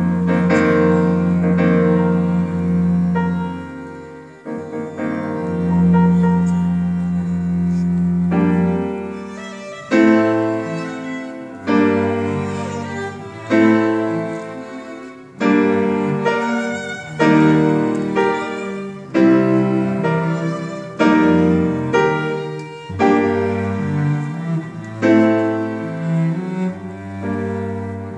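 Live classical chamber music for piano and bowed strings. Long held low string notes open it; from about eight to ten seconds in, the piano strikes chords roughly every two seconds beneath the strings.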